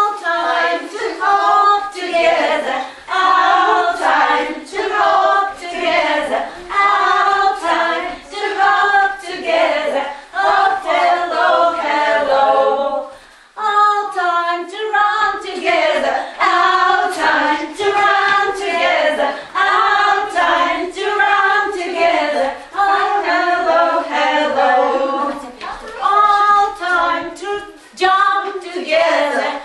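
A group of women singing a children's song together without accompaniment, with a brief break about halfway through.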